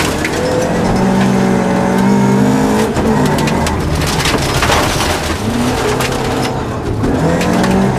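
Opel Ascona rally car's engine at full throttle on a gravel stage, heard from inside the cabin: the revs climb, drop at a gear change about three seconds in, and climb again near the end. Loose gravel clatters against the car's underside throughout.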